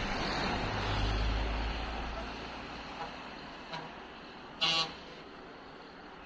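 Road traffic: a passing vehicle's low rumble fades away over the first couple of seconds, then a short vehicle horn toot sounds near the end.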